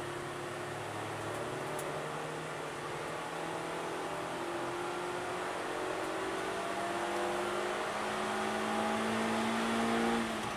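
Suzuki Swift Sport's four-cylinder engine heard from inside the cabin, accelerating with its pitch climbing steadily, then dropping suddenly near the end. Road and tyre noise runs underneath.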